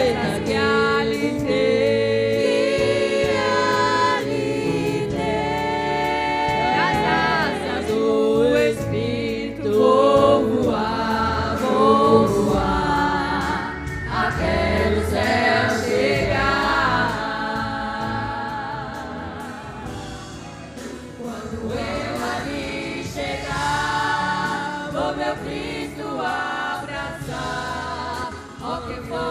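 Women's gospel vocal group singing a hymn together in harmony over instrumental accompaniment.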